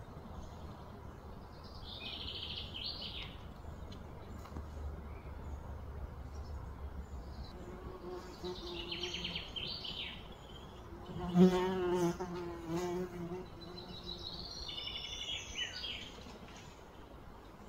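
A flying insect buzzing close by, loudest for about a second and a half past the middle. Short high trilled bird chirps come three times in the background.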